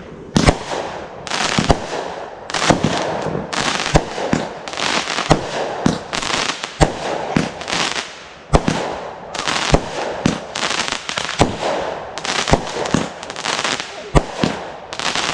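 Fireworks going off in a fast barrage: many sharp bangs, one after another, with crackling in between.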